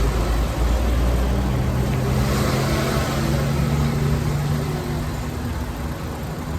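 Hyundai Elantra's engine running steadily, with a low, even hum.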